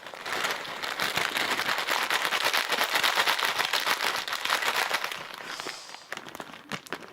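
Homemade glue slime packed with confetti being squeezed and worked close to the microphone, giving a dense crackling crunch that is loudest in the middle and trails off near the end.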